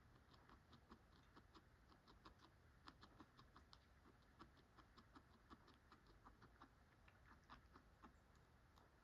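Guinea pig chewing dry pellets: faint, quick, irregular crunching clicks, several a second.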